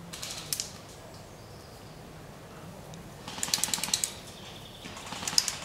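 Airsoft electric guns firing on full auto in three short bursts of rapid clicking shots: a brief one at the start, a longer burst of about fifteen shots a second a little past halfway, and another near the end.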